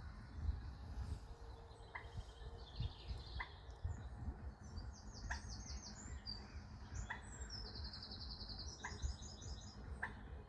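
Birds calling: one bird gives a short, sharp call repeated roughly every one and a half seconds, while higher-pitched trills from another bird come in over the middle, above a steady low rumble.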